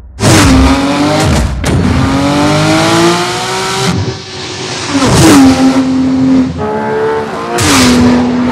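Porsche 911 GT3 RS's naturally aspirated 4.0-litre flat-six revving hard at full throttle. The note starts abruptly, climbs in pitch, and drops sharply several times as it shifts up through the gears.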